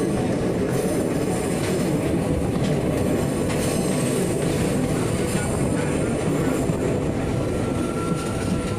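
Passenger train running on the rails, heard from outside an open coach window: a steady rumble of wheels on track mixed with wind. A steady high wheel squeal joins near the end as the train rounds a curve.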